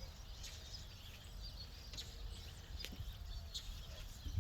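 Faint, scattered bird chirps over a low outdoor rumble, with a few small clicks.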